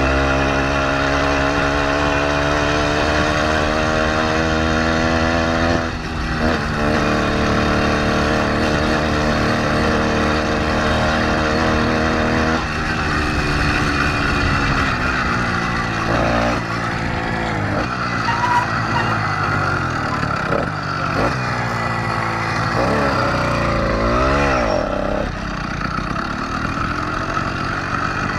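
Motorized bicycle's small engine running under way. It holds a steady note for the first dozen seconds, then its pitch falls and climbs several times as the revs drop and build again.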